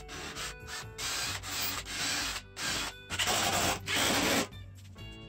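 Cordless drill driving screws into a wooden cable clamp block, running in several short bursts each under a second, over faint background music.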